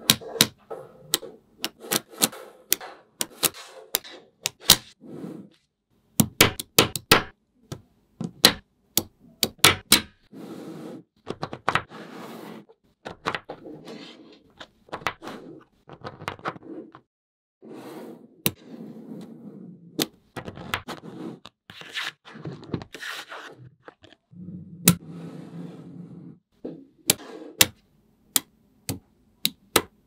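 Small magnetic balls snapping together in sharp clicks, many in quick succession over the first ten seconds and sparser after that. Between the clicks, slabs of balls rattle and scrape as they are pushed and slid across the table.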